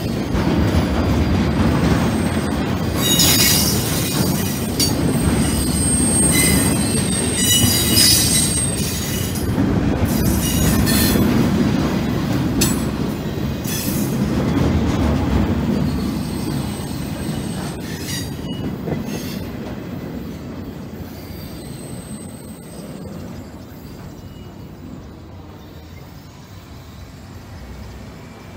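Empty railroad flat cars of a long freight train rolling past at a grade crossing: a steady rumble with wheels squealing on the rail and bursts of clanking over the first half. The sound fades away over the last ten seconds or so as the end of the train goes by.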